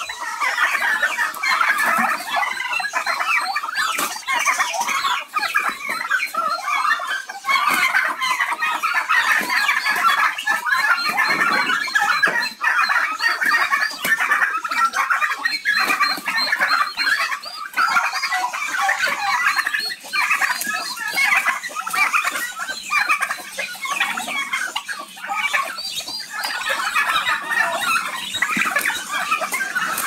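A flock of domestic turkeys calling all at once: a continuous, dense chatter of many overlapping clucks and calls with no pauses.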